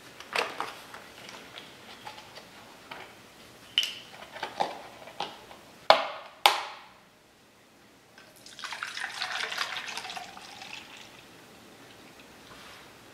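Kitchen clatter of utensils and dishes, a string of sharp clinks and knocks with two loud ones about six seconds in, then liquid running or pouring for about three seconds.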